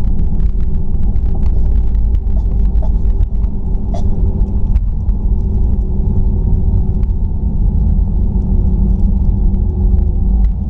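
Airliner taxiing on the ground, heard from inside the cabin: a loud, steady low rumble of the jet engines and the wheels on the pavement, with a steady hum and scattered light clicks and knocks.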